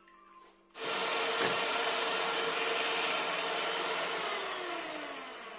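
Electric hand mixer switched on about a second in, its beaters whirring steadily through egg-yolk batter in a ceramic bowl. Near the end it is switched off and the motor winds down with a falling whine.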